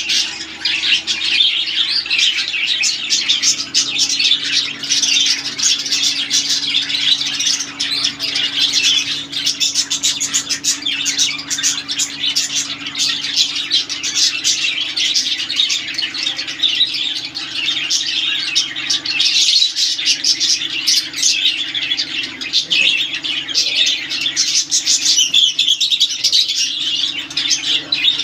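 Many caged budgerigars and lovebirds chattering and chirping all at once, a continuous dense twittering over a steady low hum.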